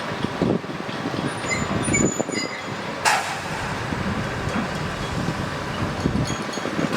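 Heavy earthmoving machinery running steadily with an uneven low rumble and knocks, and one short, sharp hiss of air about three seconds in.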